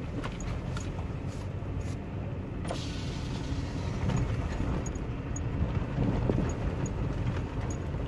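2011 Jeep Liberty driving on a gravel road, heard from inside the cabin: a steady low rumble of tyres and engine, with scattered light clicks and knocks.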